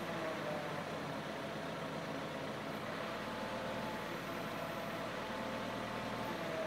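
An engine idling steadily, with a faint steady whine over it.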